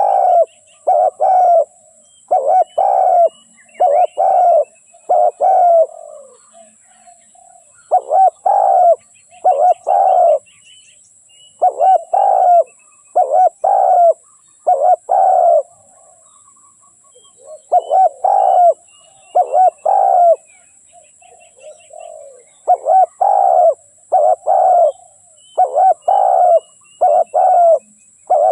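Spotted dove cooing, repeated phrases of several low coos with pauses of one to two seconds between them. Fainter high chirps of other small birds and a steady faint high hiss lie underneath.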